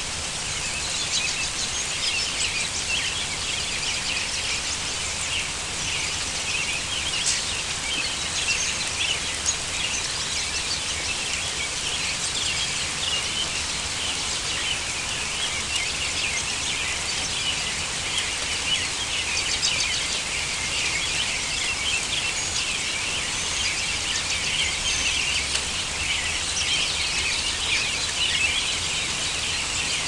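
A large number of songbirds calling together in a dense, unbroken chorus of short chirps and chatter, over the steady hiss of a heavy downpour.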